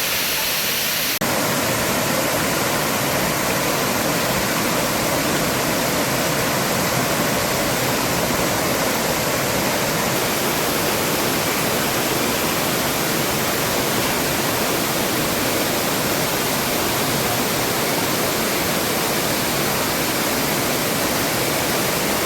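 Waterfall: the steady rush of falling water, changing abruptly about a second in to a fuller, slightly louder rush.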